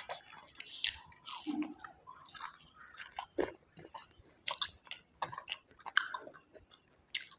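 A person chewing food close to the microphone, with irregular smacking and clicking mouth sounds.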